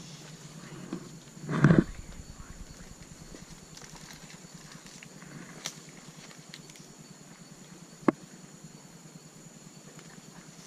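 Rainforest insects keeping up a steady high buzz, with a loud brief thump about two seconds in and a sharp click near the end.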